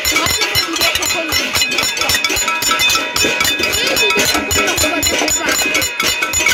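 Pots and pans being banged in a casserolade protest: rapid, continuous metallic clanging with ringing tones.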